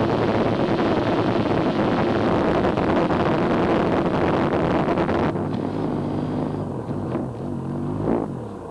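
Wind rush and engine noise from riding a Kawasaki two-stroke triple motorcycle at speed. A little past halfway the sound changes abruptly to the engines of several motorcycles, their pitch falling and then rising as they pass.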